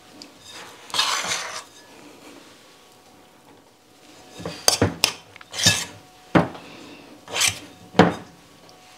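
A spoon scraping and knocking against a mixing bowl and a cast iron skillet as sticky biscuit dough is scooped and dropped. There is a scrape about a second in, then a run of sharp clinks and knocks, about half a dozen, in the second half.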